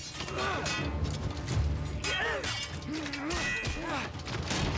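Steel swords clashing again and again in a melee, with the fighters' yells and grunts, over an orchestral film score.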